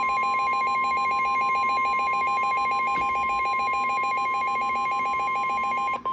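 Emergency alert tones: a steady tone near 1 kHz, the weather-radio warning alarm tone, layered with a fast-warbling alert tone. The warbling tone cuts off near the end, leaving the steady tone alone.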